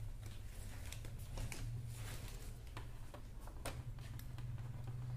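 Faint clicks and small knocks of a mains power cord's plug being handled and pushed into a plasma TV's AC inlet, over a steady low hum.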